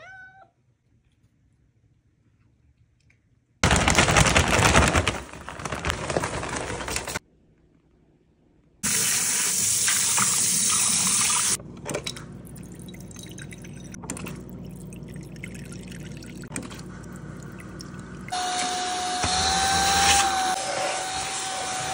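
A run of household sounds: a cat's short meow at the start, a loud rushing noise about four to seven seconds in, then tap water running into a stainless steel sink from about nine seconds in. Near the end a stick vacuum cleaner runs with a steady whine.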